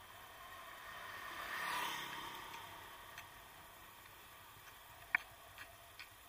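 A motor vehicle passes, faint, its sound rising to a peak about two seconds in and then fading away. A few faint sharp ticks follow in the second half.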